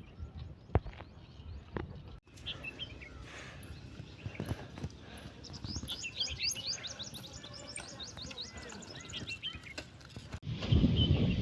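Birds chirping: a rapid run of short, high, sweeping notes through the middle, with a few faint knocks before it. In the last second a louder low rumble comes in.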